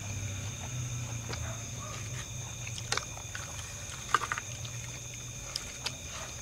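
Eating by hand at a table: chewing and mouth noises, with a few sharp clicks of a ceramic plate. The clicks come once about three seconds in and in a quick cluster a little after four seconds, as rice is tipped off a plate. They sit over a steady low hum and a steady high-pitched whine.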